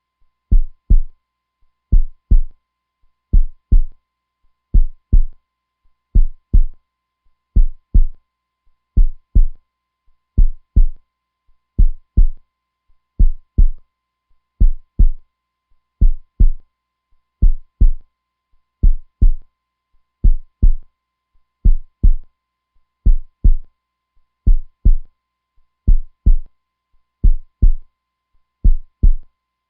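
Heartbeat, a steady lub-dub: pairs of short, deep thumps repeating evenly about every second and a half.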